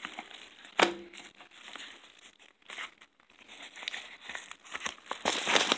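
Padded paper mailer being torn open and handled: a sharp tearing sound about a second in, quieter rustling after it, then loud crinkling of the paper near the end.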